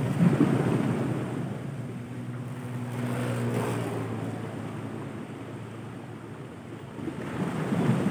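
Small sea waves washing against shore rocks in surges, loudest just after the start and again near the end, with some wind on the microphone. A steady low hum runs under the first half and fades out.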